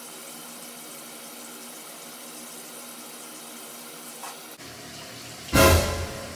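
Bathroom sink tap running in a steady stream into the basin, cutting off abruptly about four and a half seconds in. Near the end, loud music with a strong, pulsing beat starts.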